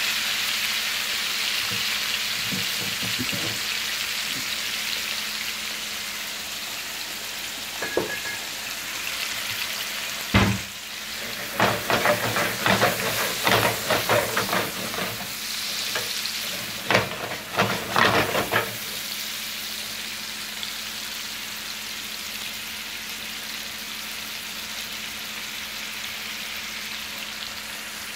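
Chicken breasts sizzling in a frying pan of red wine reducing, a steady hiss that slowly softens. From about ten seconds in, a run of sharp knocks and clatters for some eight seconds stands out above the sizzle.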